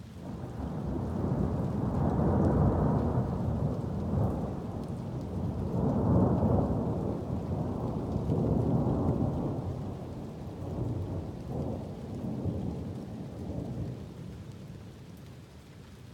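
A long roll of thunder that swells in about half a second in, rumbles in several surges and fades out near the end, over steady rain.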